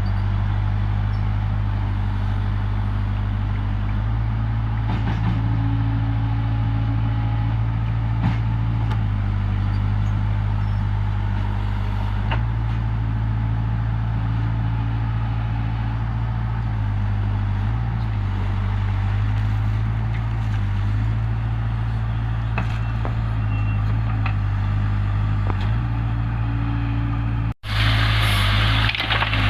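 Heavy diesel machinery running steadily at a constant low speed, with slight shifts in engine pitch as the load changes. Near the end it cuts off abruptly and a louder, hissier engine noise follows.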